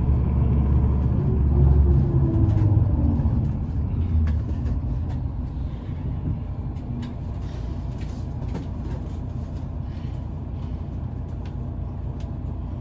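A large road vehicle, such as a bus, running loud for the first few seconds, its engine pitch falling as it passes or slows, then easing into a steadier, quieter low traffic rumble.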